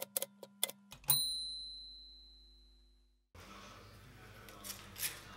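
Manual typewriter keys striking a few times, then the typewriter's bell dings once and rings out for about two seconds. Faint room noise follows.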